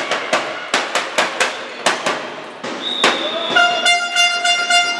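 Spectators beating a hand drum or tambourine in a quick rhythm. Just under three seconds in a steady high tone sets in, and about half a second later a fan's horn joins with one long held note.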